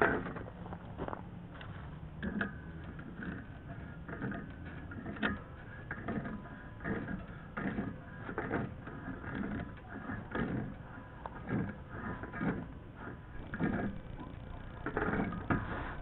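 A threaded pipe fitting, its threads coated with thread dope, being screwed onto a pipe: a run of irregular soft clicks and scrapes as it is turned.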